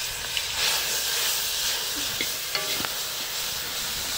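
Chopped garlic, onion and oregano sizzling in hot oil in a large aluminium pot over a wood fire, stirred with a metal ladle that clicks against the pot now and then.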